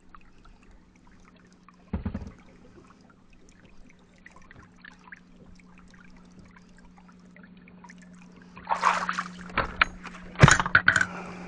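Water trickling and sloshing aboard a boat over a steady low hum, with a single thump about two seconds in and a burst of knocking and clattering near the end.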